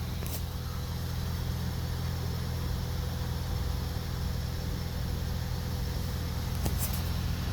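Ford Escape idling steadily while its washer-fluid pump runs with a faint whir, with a click just after the start and another near the end. The pump can be heard but no fluid sprays, a sign that the blockage lies in the tank or its filter rather than in the pump.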